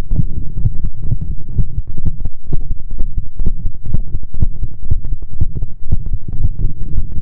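Heartbeat sounds: a dense run of deep, dull thumps, closely spaced, with most of their weight in the low bass.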